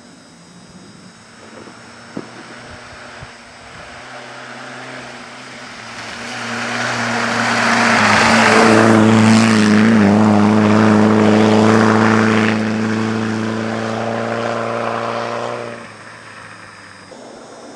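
Classic Mini rally car passing at speed: its engine note grows louder as it approaches, is loudest for a few seconds at a fairly steady pitch, then cuts away sharply as the car goes out of sight round the bend.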